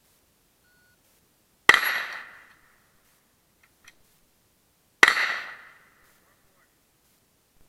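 Two rifle shots about three seconds apart, each a sharp crack that dies away within about a second.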